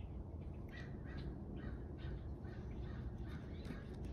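A T20 Torx screwdriver backing a screw out of the UV unit's plastic mounting bracket, giving faint squeaks about twice a second as it is turned, over a low steady hum.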